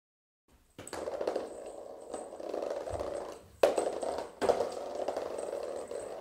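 A steady low hum with two sharp knocks a little under a second apart, just past the middle; the first knock is the loudest.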